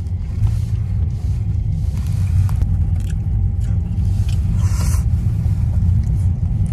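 Steady low road and engine rumble inside a moving car's cabin, with a few faint bites and crunches from a sandwich being eaten.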